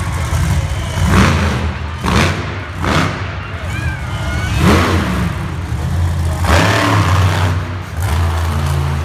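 Monster truck engine running loud and deep, revved hard in about five short surges as the truck drives and turns on the dirt, echoing in an indoor arena.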